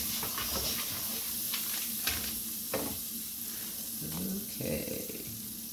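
Butter and grease sizzling in a hot frying pan, with scattered light clicks and scrapes of kitchen utensils.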